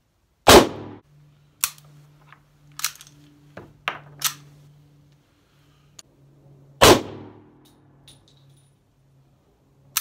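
C96 Mauser broomhandle pistol (7.63×25 mm) firing two loud shots about six seconds apart, with several lighter sharp clacks between them. The pistol is not cycling properly: it either fails to eject the spent case or, when it does eject, fails to chamber the next round, which the owner puts down to a problem with the extractor.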